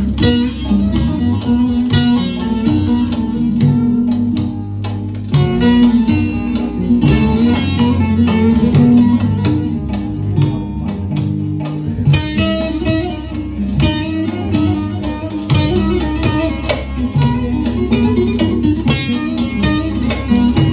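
Instrumental folk music led by a plucked string instrument playing a busy melody over sustained low notes.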